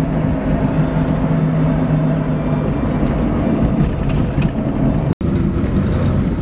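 Steady road and engine noise of a car driving along a city street, with a low hum that fades a few seconds in. The sound drops out briefly about five seconds in.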